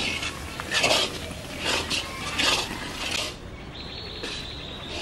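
Metal spatula scraping and stirring semolina through hot ghee in an iron kadhai, in strokes about one every three-quarters of a second. The strokes stop about three seconds in, and a steady high tone carries on through the end.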